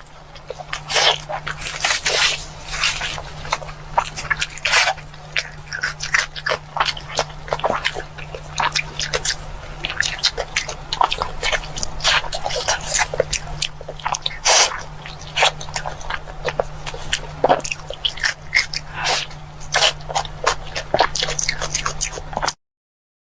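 Someone eating: irregular crunchy chewing and sharp clicking sounds over a steady low hum, stopping abruptly near the end.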